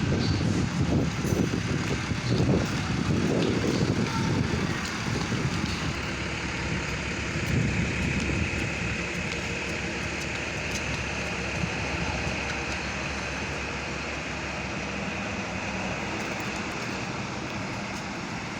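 Vehicle engine rumble, uneven and loudest for the first few seconds, then settling into a steadier, quieter run, with a faint high steady whine through the middle. No horn sounds.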